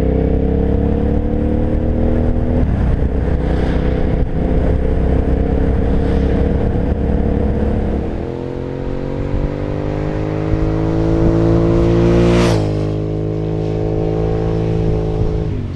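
2001 Suzuki SV650's V-twin engine with an aftermarket Laser exhaust, accelerating with wind rushing past and an upshift about two and a half seconds in. In the second half a motorcycle engine climbs in pitch as it approaches, rushes past with a loud whoosh, and drops in pitch as it moves away.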